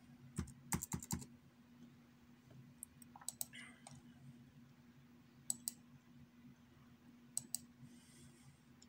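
Laptop keyboard and mouse clicks: a quick run of keystrokes in the first second, then pairs of clicks about every two seconds, over a faint steady hum.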